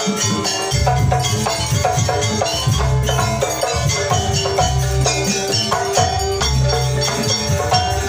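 Live Javanese jaranan ensemble music: keyboard and hand drums playing a steady, repeating dance rhythm and melody.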